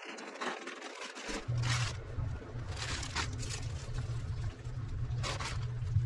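A plastic bag crinkling and garlic bulbs rustling and scraping as they are tipped into a metal mesh storage bin and moved around by hand, in a few short bursts over a steady low hum.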